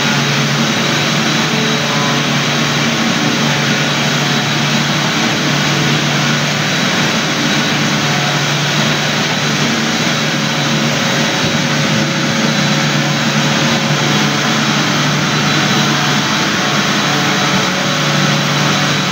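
Floor-care machine such as a floor sander, buffer or industrial vacuum, its motor running steadily with a strong low hum under a broad rushing noise.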